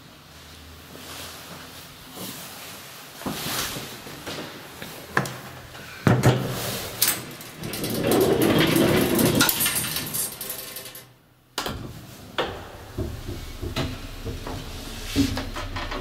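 Elevator door being handled by its handle: clicks and knocks of the handle and latch, with a louder rattling stretch about eight seconds in as the door is worked.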